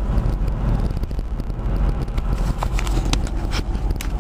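Car interior road and engine noise while driving: a steady low rumble, with a few light clicks in the second half.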